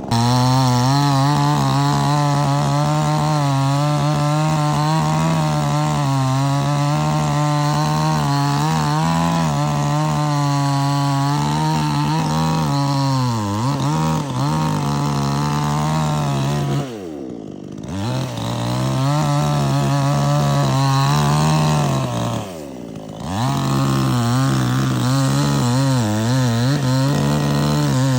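Petrol chainsaw running at high revs while cutting wood, its engine pitch wavering and sagging under load. Twice in the second half the revs fall away briefly and rise again.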